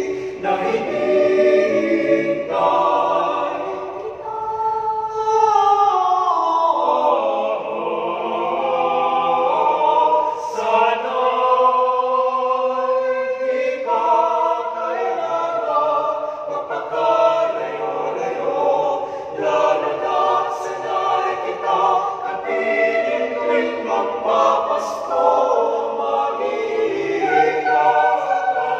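Small mixed choir of eight voices, two each of soprano, alto, tenor and bass, singing a cappella in sustained four-part harmony.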